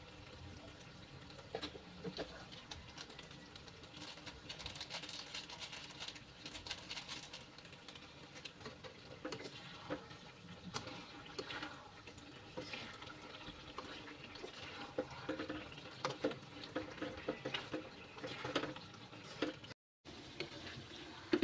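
Metal spatula stirring and scraping thick, oily spiced meat in a wok, with irregular clicks against the pan over a steady crackle of the sauce cooking.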